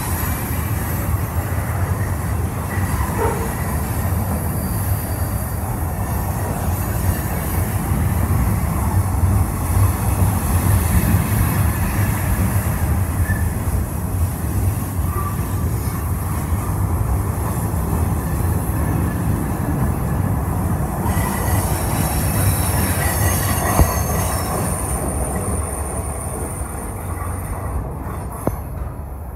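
Union Pacific freight cars rolling past close by: a steady rumble of steel wheels on the rails, with faint high wheel squeal in the second half. The sound fades over the last few seconds as the tail of the train moves away.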